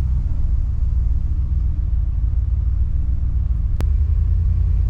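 2020 Ram Rebel pickup's V8 engine, fitted with a K&N cold air intake, running with road noise heard from inside the cab: a steady low rumble. A single sharp click near the end.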